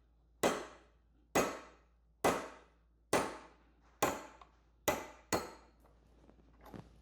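Hammer striking a pin punch to drive the roll pin out of the shift-shaft collar on an outboard's lower unit. Seven sharp metallic blows about a second apart, the last two closer together, each dying away briefly, then a faint tap near the end.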